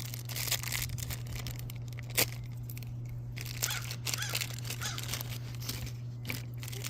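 Hands crinkling and tearing small toy packaging to get mystery figures out: irregular rustling and crackling, with one sharp click about two seconds in, over a steady low hum.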